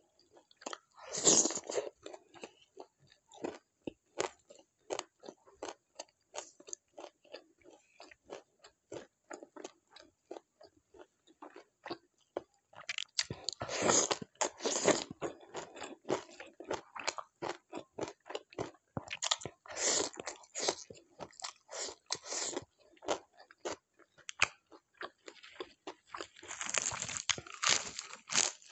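A person chewing food close to the microphone: a steady run of small wet chewing clicks, with louder crunching bites about a second in, around the middle, and near the end.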